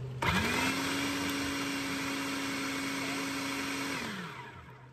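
Electric food processor chopping green bell pepper and purple onion. The motor spins up about a quarter second in, runs at a steady pitch, then switches off near the end and winds down with a falling whine.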